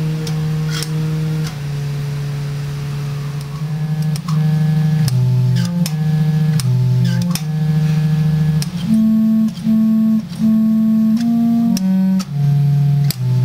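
Thermoacoustic organ playing a slow melody of low held notes, each note sounding as a truck exhaust cap on its tube is released by a key; the tubes are driven by the temperature difference between flames at one end and liquid nitrogen at the other. Sharp clicks come at many of the note changes.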